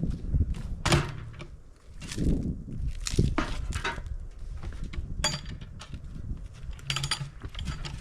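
A heavy cedar log being rolled and shifted onto a homemade sawmill's bed: irregular wooden knocks, thumps and scrapes.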